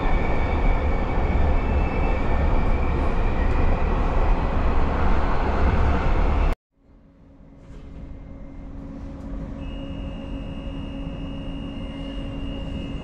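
Light rail tram running, heard from inside the car: a steady rumble of wheels on track with a faint high whine. It cuts off abruptly about six and a half seconds in. After that comes a quieter steady hum with a high whine that slowly grows louder.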